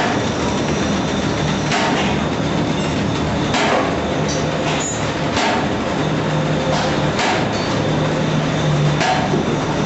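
Automatic paper bag making machine running: a steady mechanical clatter with a sharper knock that recurs about every two seconds.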